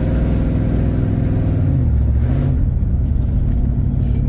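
1973 Cadillac Coupe de Ville's 472 V8 running while the car is driven, heard from inside the car. The engine note dips about two seconds in and then picks back up, as with a gear change. It runs smoothly, freshly tuned up.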